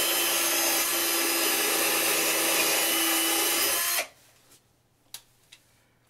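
Power drill boring a pilot hole into a painted wooden door frame, running at a steady speed for about four seconds and then stopping. Two small clicks follow.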